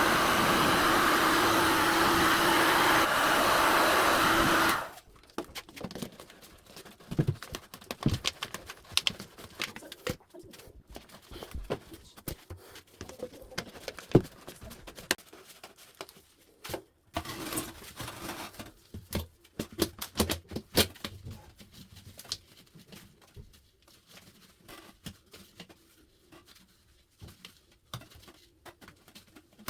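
A small blower motor runs with a steady rushing noise and a low hum, then cuts off suddenly about five seconds in. After it, scattered light clicks and knocks follow.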